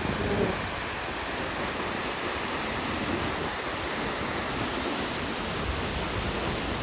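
Steady, even rushing roar of a large waterfall.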